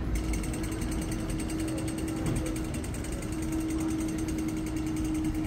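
Street ambience with a rapid, even mechanical ticking or rattling that starts abruptly, over a steady hum and traffic noise.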